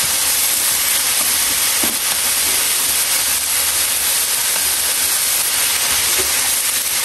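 Cubed beef stir-frying in oil in a hot pan, sizzling steadily. The beef is already seared firm.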